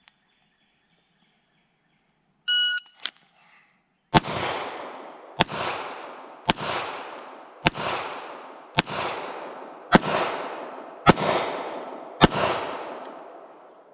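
A shot timer beeps once, then a Glock pistol fires eight single shots at an even pace, a little over one a second, each with a long echoing tail.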